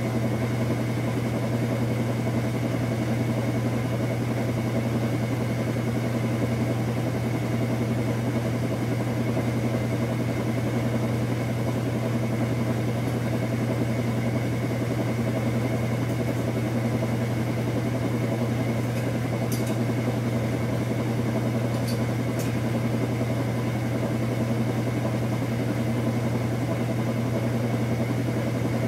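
KitchenAid Superba top-load washing machine spinning a full load: a steady low motor hum with fainter steady tones above it, and a few faint ticks about two-thirds of the way through.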